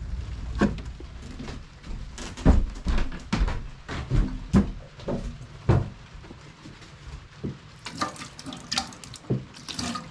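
A low rumble at first, then metal loaf pans knocking and clattering in a stainless steel galley sink, then tap water running and splashing over a hand and the pans.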